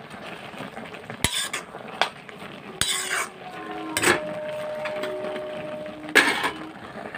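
Metal spatula scraping and knocking against a steel kadai as leafy greens are stir-fried, in several separate strokes. A steady ringing tone sounds for about two seconds in the middle.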